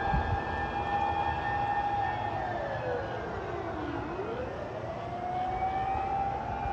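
Fire engine's mechanical motor siren wailing on an emergency run. It holds a high note, winds down about two seconds in to a low pitch around four seconds in, then winds back up and holds high again. Engine and road rumble runs underneath.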